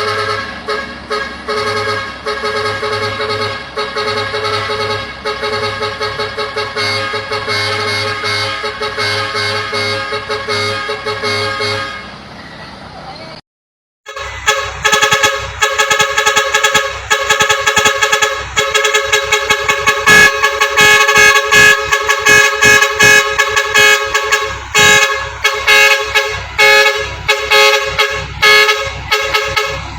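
Four-foot trumpet air horns blaring several notes at once in fast, rhythmic pulses. The sound cuts out briefly about halfway through, then resumes louder with even quicker pulsed honking.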